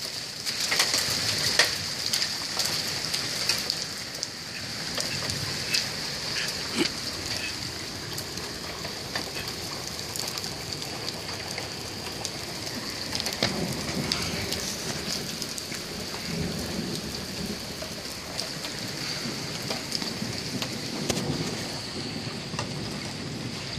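Rain and small hail falling on a wet concrete driveway: a steady hiss, dotted with sharp ticks of hailstones striking, which are thickest in the first few seconds. Low rumbles come in the second half.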